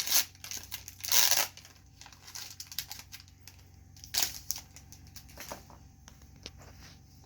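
Foil Pokémon booster pack being torn open and crinkled by hand: a few short rustling tears, the loudest about a second in and another about four seconds in, with light crinkles and card-handling clicks between.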